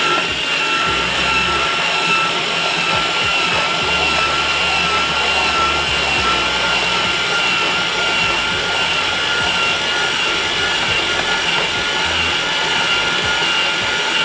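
TOFFY electric shaved-ice machine running steadily, its blade shaving a frozen milk ice block into fine snow ice: a steady motor whine over the rasp of the ice being shaved.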